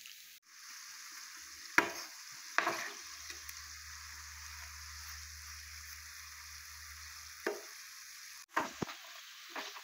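Dough sticks frying in shallow hot oil in a frying pan, a steady sizzle. A few sharp clicks come from a metal perforated spoon knocking against the pan as the sticks are turned.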